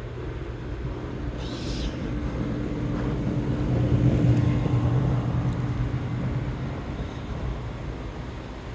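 A vehicle passing by: engine hum and road noise swell to a peak about four seconds in and then fade, with a brief hiss near the start.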